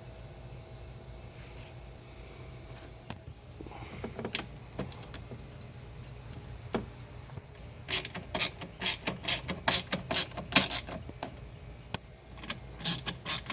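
Quick, sharp clicking and rattling of metal tool work, like a ratchet or screwdriver turning, as the cover over the washer's shift actuator is fastened back on. It comes in runs starting about eight seconds in, with a short break before the last run, over a steady low hum.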